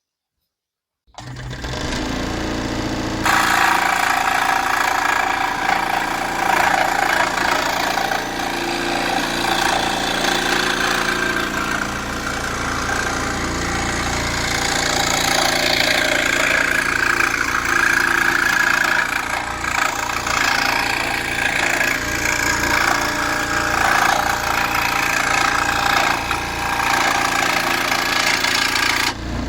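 Charnwood SS18F scroll saw with a 120-watt motor starting up about a second in. About three seconds in its reciprocating blade starts cutting through a board and runs steadily, then winds down at the very end.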